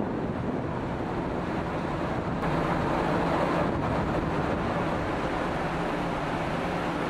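Passenger ferry under way: its engines run with a steady low hum under the rush of water along the hull.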